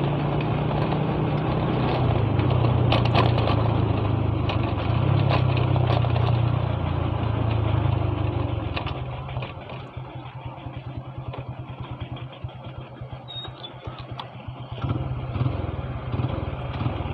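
Motorcycle engine running while the bike is ridden over a rough dirt road. The engine holds steady revs, drops to a low, quick pulsing putter as the throttle is eased about ten seconds in, then picks up again near the end.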